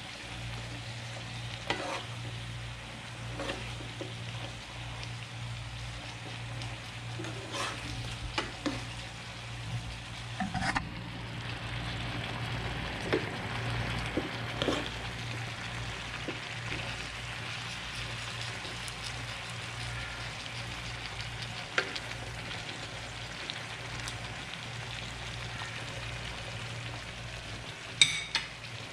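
Chicken, potato and carrot pieces sizzling steadily in a frying pan while a spatula stirs them, with scattered clicks and scrapes of the spatula against the pan.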